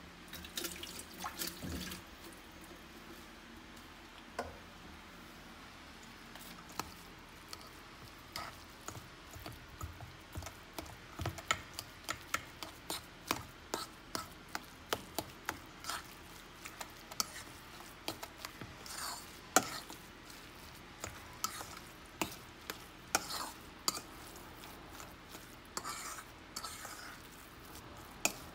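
A metal fork stirring and mashing moist crumbled cornbread dressing in a stainless steel mixing bowl, with irregular clinks of the fork against the bowl that come more often in the second half.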